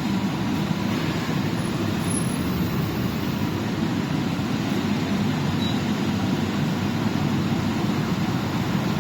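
YC-10S industrial dehumidifier running: a steady, low-pitched rush of fan air and machine hum.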